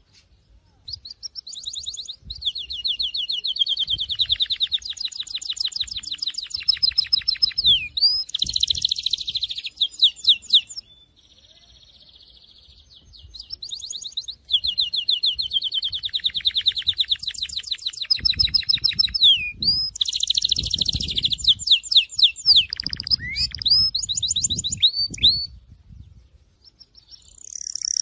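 Syrian canary singing long phrases of fast, even trills and rolls mixed with quick sweeping whistles. The song breaks off briefly about a second in, again around the middle, and near the end.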